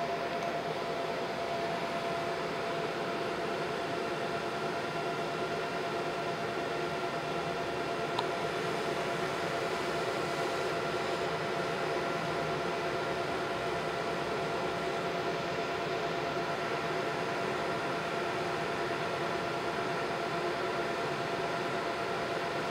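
Cloudray QS-50 50 W fiber laser engraver running: a steady fan whir and hiss with a constant mid-pitched hum tone. A faint tick comes about eight seconds in.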